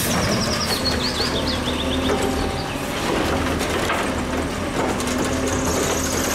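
Automated side-loader garbage truck running while its hydraulic arm lifts a wheeled trash cart, tips it into the hopper and lowers it again: a steady mechanical noise with a low whine.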